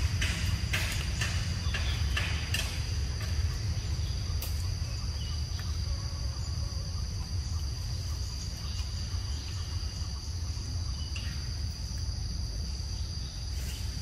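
Steady insect chorus, a constant high-pitched buzz, over a low rumble, with a few sharp clicks in the first few seconds.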